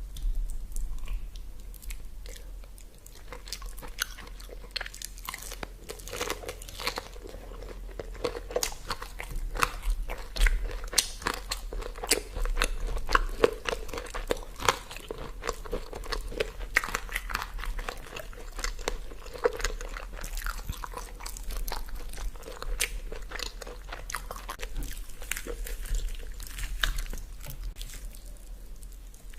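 A person eating: steady biting and chewing with crisp crunching sounds and many small irregular clicks.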